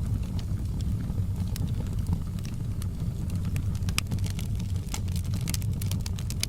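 Wood fire in a fireplace crackling, with sharp pops scattered over a steady low rumble; one pop about four seconds in is the loudest, and several come close together near the end.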